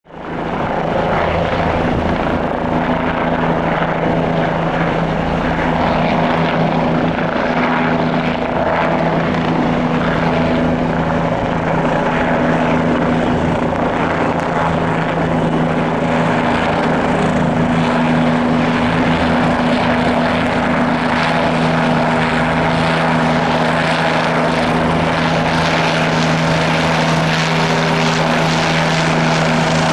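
Bell 429 twin-turbine helicopter hovering low and close, its engines and four-blade main rotor running steadily. The sound is a loud, unbroken noise with two steady low hums in it, and it fades in within the first second.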